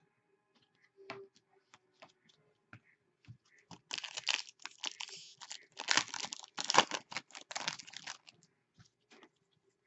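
Hockey card pack wrapper being handled, then torn open and crinkled for a few seconds, after light clicks of card handling.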